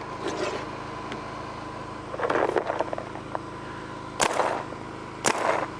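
Planet Eclipse Geo paintball marker firing single shots for a decibel reading: two sharp pops about a second apart near the end. A softer, duller burst comes about two seconds in.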